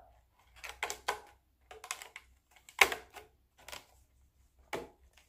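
Clear plastic lid being pressed and snapped onto a disposable aluminium foil pie pan: a handful of irregular clicks and crackles of thin plastic and foil, the loudest a little under three seconds in.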